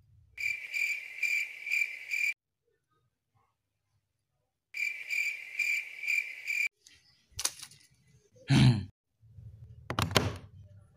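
Cricket-chirp sound effect: two bursts of steady, pulsing chirps a few times a second, each about two seconds long, with dead silence between. Then a few knocks and a heavier thud of handling as a power plug is pushed into a wall socket.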